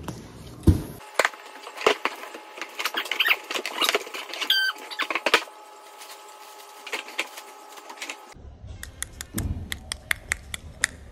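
Plastic packaging and bubble wrap crinkling and crackling in irregular bursts as a part is unwrapped by hand. Near the end, a run of evenly spaced sharp clicks.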